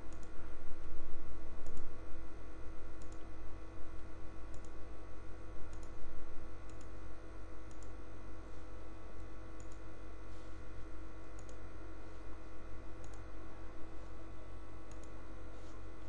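Computer mouse clicking, about one click a second, as shapes are picked one after another, over a steady electrical hum.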